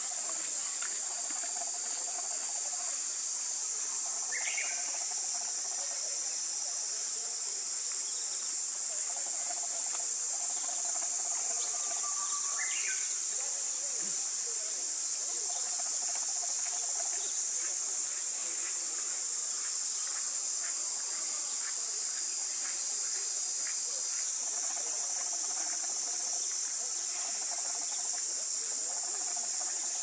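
Steady high-pitched insect chorus, with a couple of short bird chirps about four and twelve seconds in.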